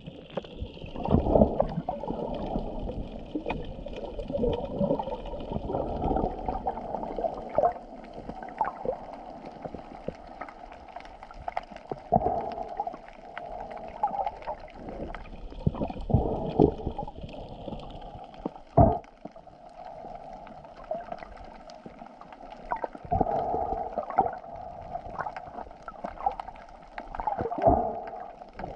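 Muffled underwater water sounds through a GoPro's waterproof housing: sloshing and gurgling that swell and fade every few seconds, with several dull thumps.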